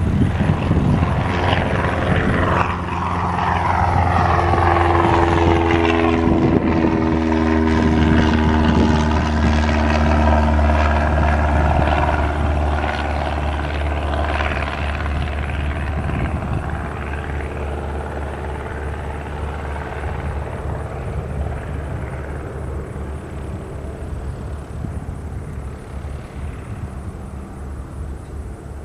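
BK-117 twin-turbine helicopter in flight, moving off: the beat of its rotor and the whine of its turbines dropping in pitch as it passes, then fading steadily with distance.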